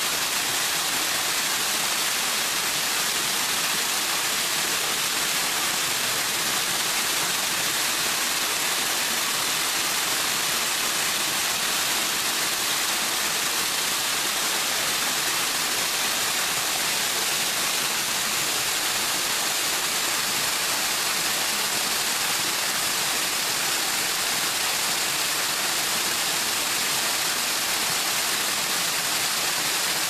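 Small waterfall pouring down a rock face and splashing onto the rocks below: a steady, unbroken rush of water with a hissing top.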